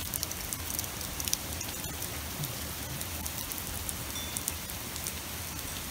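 Steady downpour of rain mixed with small hail pellets hitting a wet deck and railing: a continuous hiss sprinkled with many sharp little ticks.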